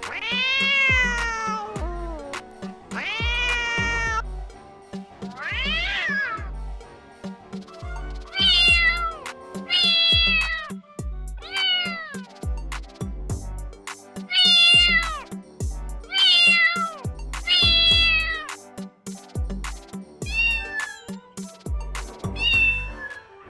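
Kitten meowing over and over, about a dozen separate calls roughly one to two seconds apart, some rising and falling in pitch, over background music with a steady beat.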